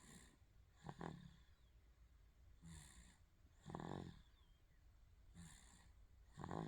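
A baby about five months old snoring in sleep, faint and even. A short pitched snore comes roughly every three seconds, three times in all, with an airy breath between each.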